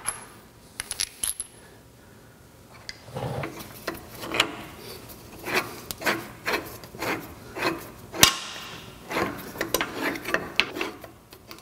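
A few small metallic clinks as bolts are taken from a box, then a run of scrapes, rubs and clicks as a steel clamp block and its bolts are fitted up under a lathe saddle, with one sharp metal click partway through.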